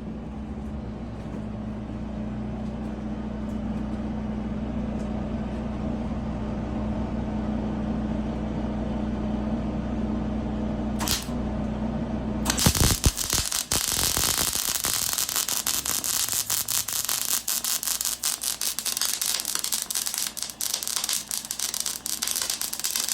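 Arc welder: a steady electrical hum for about twelve seconds, a brief arc strike about eleven seconds in, then about eleven seconds of continuous, dense arc crackle as a steel grouser is tack-welded to a Sno-Cat track cleat.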